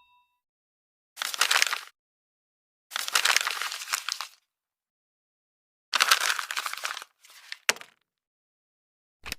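Crackling, crunching sound effect in three separate bursts of about a second each, followed by a single sharp click.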